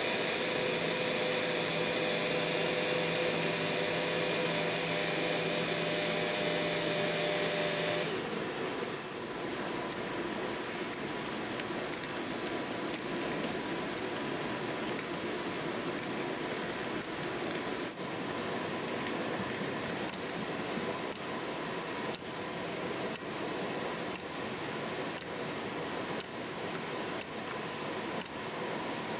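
Steady electric hum of model railway layout machinery, several held tones at once, cutting off about eight seconds in. Then sharp metallic pings about once a second, with a short pause midway, like a small hammer striking metal.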